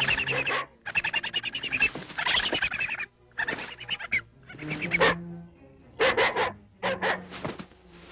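A dog and a large vulture fighting: about three seconds of harsh, rapid rasping snarls, then shorter separate bursts of growling and harsh calls.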